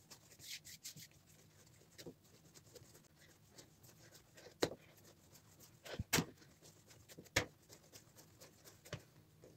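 Börek dough being kneaded by hand on a granite countertop: faint, irregular soft thumps and pressing sounds, with a few sharper knocks around the middle.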